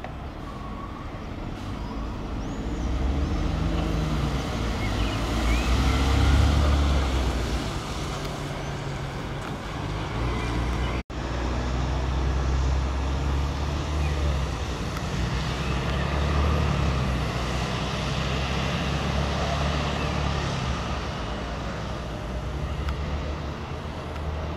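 Articulated Iveco Urbanway city bus, engine running with a low hum as the bus moves off and drives past, loudest about six seconds in. The sound breaks off abruptly about eleven seconds in, then the bus engine and road noise go on as it drives away.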